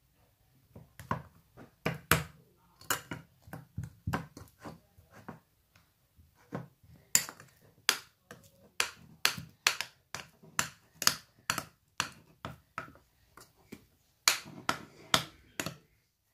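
Homemade slime of white glue and laundry detergent being stirred and worked, giving an irregular run of sharp sticky clicks and pops, about two a second, louder in the second half. The slime is still a little tacky, not yet fully set.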